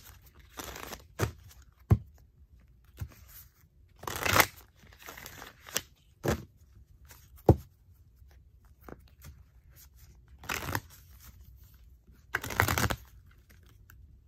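A deck of affirmation cards being shuffled by hand. Several short bursts of shuffling come with sharp taps between them.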